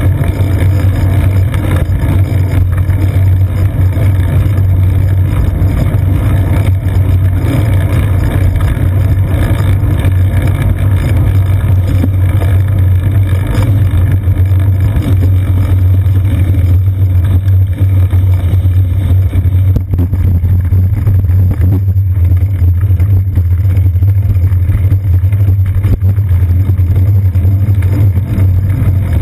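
Steady low rumble of wind buffeting and road vibration on a moving bicycle, picked up through a seat-post-mounted GoPro camera in its waterproof housing.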